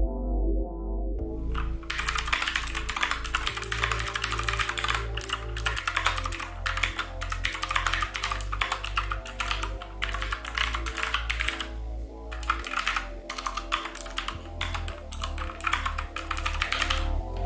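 Fast typing on a Keychron K4 v2 Gateron mechanical keyboard, a rapid run of key clicks starting about a second in, with a brief pause near the two-thirds mark, and stopping just before the end. Background music plays underneath.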